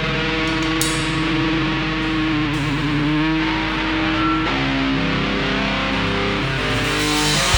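Distorted electric guitar through effects playing sustained, ringing chords and notes without drums, with a wavering pitch bend about three seconds in.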